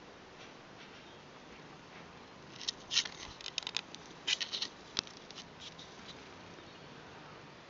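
British Shorthair cat kneading a fleece blanket, its claws catching and pulling at the fabric in a cluster of quick crackling scratches from about three to six seconds in.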